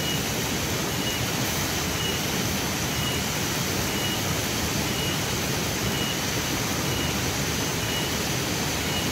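Spice paste sizzling steadily as it fries in a pan over a cooking fire.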